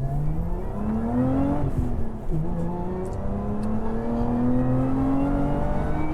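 Lotus Emira's supercharged 3.5-litre V6 accelerating hard: the engine note climbs, drops sharply on an upshift about two seconds in, then rises steadily again as it pulls through the next gear.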